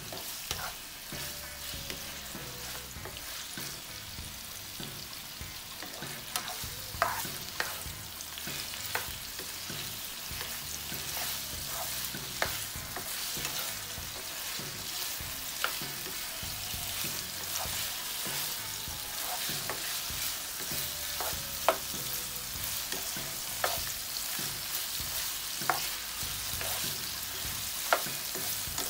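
Pork pieces sizzling steadily as they fry in oil in a nonstick frying pan, stirred with a spatula that clicks and scrapes against the pan now and then.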